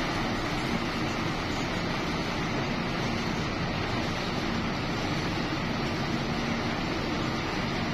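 Belt-driven open reciprocating refrigeration compressor of an air blast freezer running with its electric drive motor: a loud, steady mechanical noise with a faint even hum.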